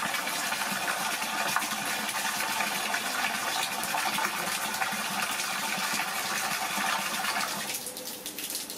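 A stream of water pouring and splashing into a large metal basin of water, a steady gushing fill that cuts off shortly before the end.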